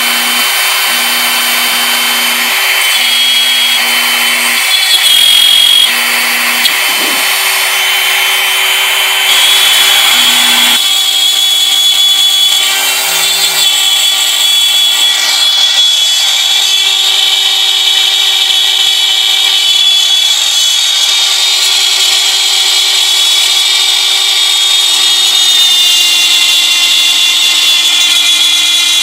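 Bosch Colt palm router running at high speed on a CNC machine, its bit milling bamboo: a steady high whine over a cutting hiss. Lower tones from the machine's axis motors switch on and off and change pitch in short steps for the first ten seconds or so, then run in longer, steadier stretches.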